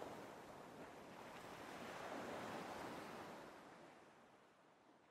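Faint sea waves washing on a shore, an even rushing wash that swells a little midway and then fades out near the end.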